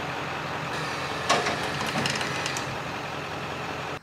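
A truck engine idling steadily, with a sharp metal knock about a second in and a short run of rattling clanks after it.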